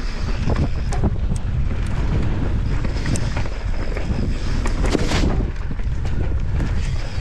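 A 2023 Santa Cruz Megatower full-suspension mountain bike descending a dirt trail at speed: wind buffeting the microphone over the rumble of the tyres on the ground, with frequent sharp clicks and rattles from the bike over roots and rocks, and a brief hiss about five seconds in.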